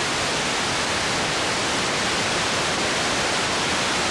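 Steady hiss of static from a blank, unrecorded stretch of videotape: an even rush of noise with no other sound in it.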